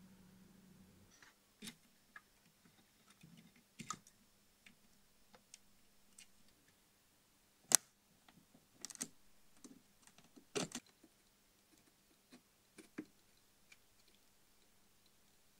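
Sparse small clicks and taps of a metal hand tool handling a hook-up lead on the turret board, with the sharpest click about halfway through.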